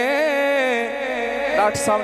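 A man's voice holding one long sung note of a devotional naat, wavering slightly, which fades out about halfway through. A man then starts speaking near the end.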